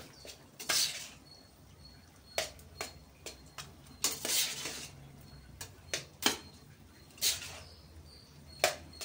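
A spoon scraping and knocking against a pan while mixing cooked rice, in irregular short strokes roughly one a second. A faint steady low hum runs underneath.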